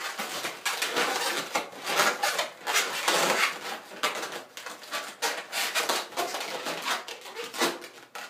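Inflated latex twisting balloons squeaking and rubbing against each other in irregular strokes as they are wrapped, twisted and tied together by hand.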